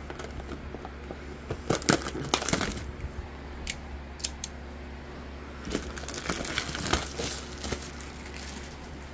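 Clear plastic shrink-wrap being torn and peeled off a cardboard trading-card box: a series of short crinkling, rustling bursts with quieter gaps, then the cardboard box being handled.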